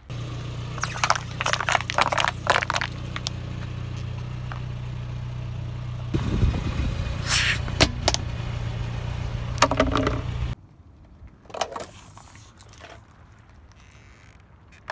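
A car's engine running steadily while its tyre rolls over and crushes objects, with bursts of crackling and crunching. The engine hum stops about ten and a half seconds in, leaving faint scraping and one short crunch.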